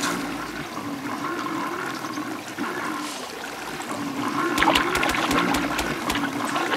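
Steady rushing water, like a waterfall or fast river, with a faint wavering tone running underneath and a few short clicks or splashes about two thirds of the way through.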